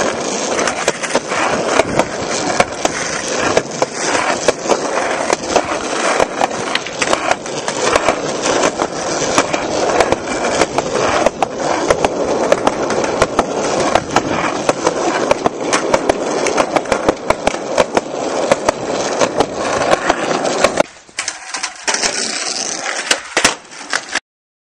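Skateboard wheels rolling on concrete and asphalt, a continuous rough rumble broken by frequent sharp clacks of the board against the ground. The rolling drops away briefly near the end, then cuts off.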